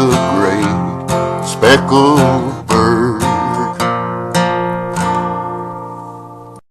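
Acoustic guitar strumming the closing chords of a gospel song, about one strum every half second. The last chord at about five seconds rings out and fades, then the sound cuts off abruptly near the end.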